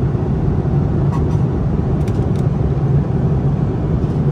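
Steady in-flight cabin noise of an Airbus A330-200 airliner at cruise: engine and airflow noise heard from inside the cabin, with a few faint clicks near the middle.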